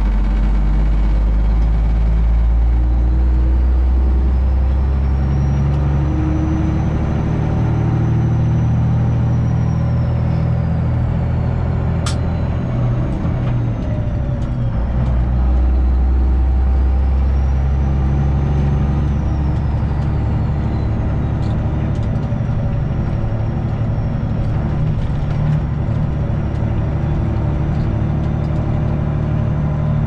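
Semi truck's Detroit Diesel 12.7 engine running under load, heard from inside the cab of a Freightliner Classic XL. The low engine drone drops away for a few seconds about twelve seconds in, with a sharp click, then picks up again. A high whistle rises and falls twice.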